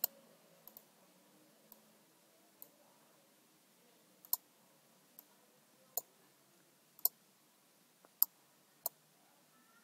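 Computer mouse clicking: about ten short, sharp single clicks at irregular intervals of roughly one to two seconds, faint against a quiet room.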